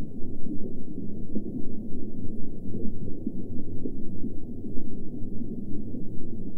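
Underwater ambience sound effect: a low, muffled rumble with uneven swells and no high end.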